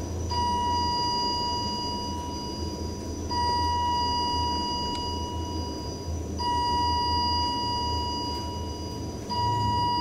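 A steady electronic tone sounding inside a moving elevator car, restarting about every three seconds, over the car's low travel hum.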